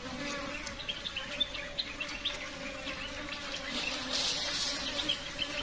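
A steady buzzing hum of an insect, with many short, high chirps scattered over it.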